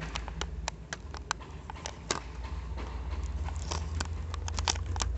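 Irregular sharp clicks and crackles of a plastic blister pack and cardboard toy box being handled and picked open by fingers, over a low steady rumble.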